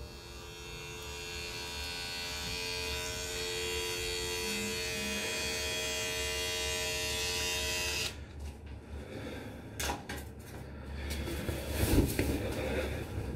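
A steady drone of many sustained tones swells over the first two seconds, holds, then cuts off abruptly about eight seconds in. Scattered light clicks, knocks and rustling follow, with a sharper knock near the end.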